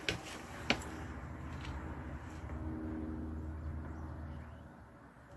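Two sharp taps near the start, then a low engine hum that swells and fades over a few seconds, like a motor vehicle passing by.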